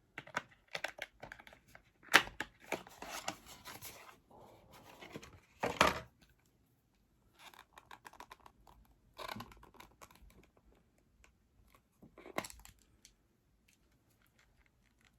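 Packaging being torn open and handled: irregular tearing and crinkling with sharp rips, loudest about two seconds in and again near six seconds, then sparser rustles that die away near the end.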